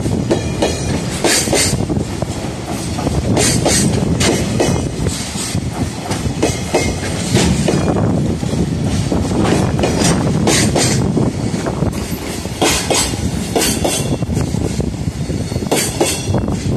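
Container freight train rolling past close by: a steady rumble of the flatcars' wheels on the rails, with sharp clickety-clack strikes every few seconds, often in pairs, as the wheelsets cross rail joints.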